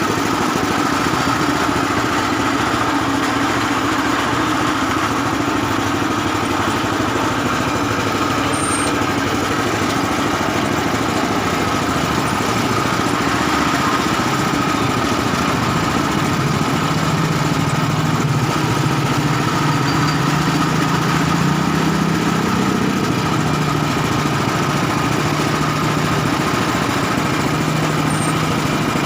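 Motor-driven sugarcane juice press running steadily. A lower drone joins about halfway through and holds to near the end.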